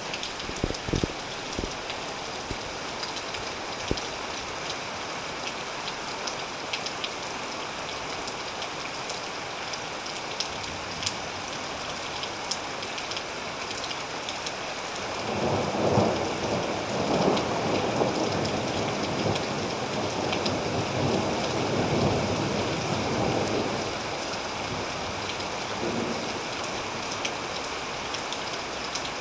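Steady rain falling, with scattered sharp drop taps. About halfway through, a long rolling thunder rumble swells up and fades away over roughly nine seconds.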